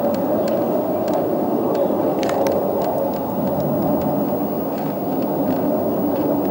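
Overflying Navy jet aircraft: a loud, steady, deep rumble with no break, with a few faint clicks over it.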